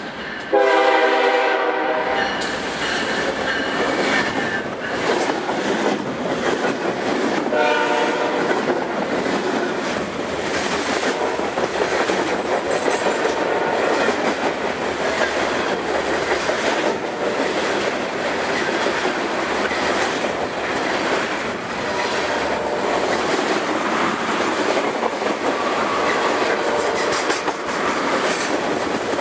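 Freight train passing at speed. The locomotive horn sounds a blast starting about half a second in, lasting a second and a half, and a short one about 8 seconds in. Then comes the steady rumble and rhythmic wheel clatter of the freight cars going by.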